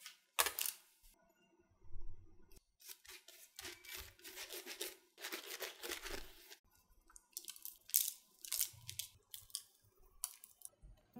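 Kitchen food-preparation sounds: a string of irregular scraping and rustling strokes, some with a soft knock underneath, with short pauses between them.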